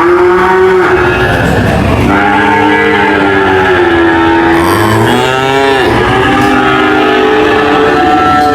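Cattle mooing: four moos one after another with almost no pause, three of them long and drawn out, and a shorter one about five seconds in that rises and falls in pitch.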